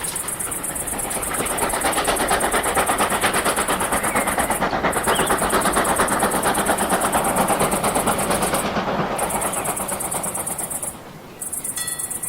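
A train running with a steady rhythmic beat. It swells over the first couple of seconds and eases off later, with a short dip about eleven seconds in.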